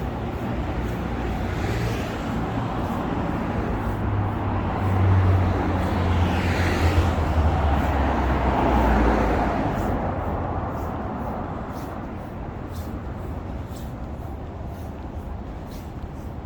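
Street traffic with a motor vehicle driving past close by: a low engine and tyre rumble builds from about four seconds in, is loudest in the middle, then fades away.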